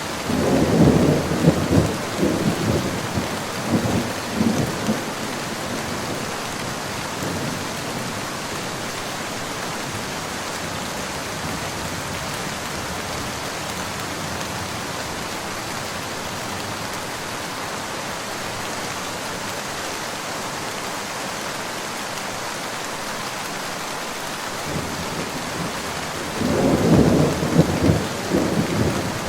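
Steady rain falling, with rolling thunder rumbling over it for the first few seconds and again near the end.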